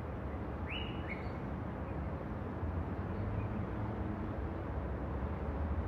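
Outdoor background noise with a steady low rumble, and a bird chirps twice in quick rising notes about a second in.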